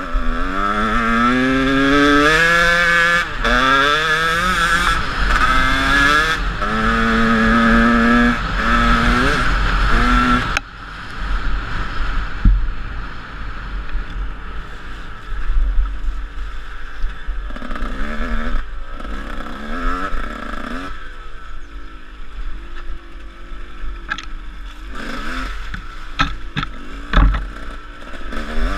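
150cc Husqvarna dirt bike engine revving hard and climbing in pitch through several gear changes. About ten seconds in it drops off to low, uneven revs with short blips of throttle, and a few sharp knocks from the bike over rough ground near the end, with wind buffeting the helmet-mounted microphone.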